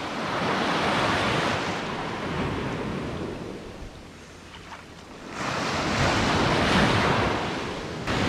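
Small surf breaking and washing up a sandy beach: loud at first, dying away around four seconds in, then building again as the next wave comes in.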